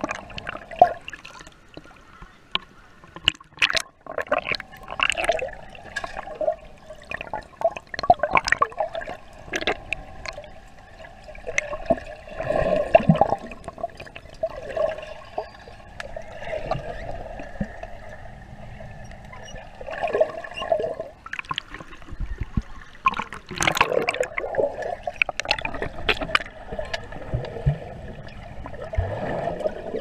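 Water heard underwater, sloshing, gurgling and bubbling around the camera in irregular splashes and clicks, over a faint steady hum.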